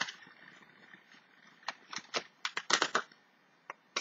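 Small cardboard box being opened by hand: a quick cluster of sharp clicks and rustles of card and paper about halfway through, with a couple more near the end.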